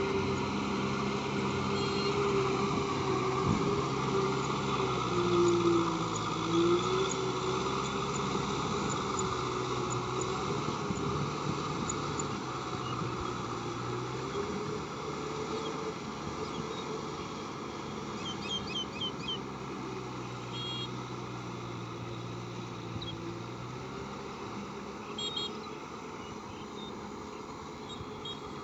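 Kubota M6040SU tractor's diesel engine running steadily under load as it drives a rotary tiller through mud, its pitch wavering slightly and the sound slowly fading as the tractor moves away. A few short bird chirps in the second half.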